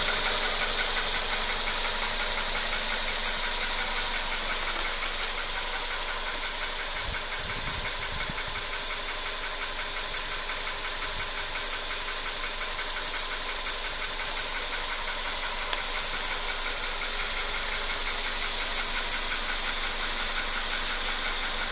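Volkswagen Polo Sedan engine running steadily with a fast, even knocking, the knock that has newly appeared in this engine. A couple of brief low thumps come about a third of the way in.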